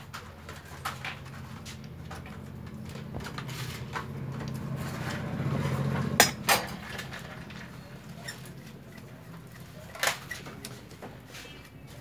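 Metal clinks and clicks from buttonhole machine parts and tools being handled as a cutter-frame pin and screw are fitted, the sharpest a pair of clicks about six seconds in and another about ten seconds in, over a low hum that swells midway.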